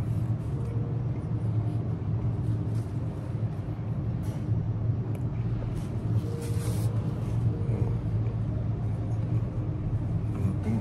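A steady low mechanical hum with a few faint steady tones above it, and scattered light clicks.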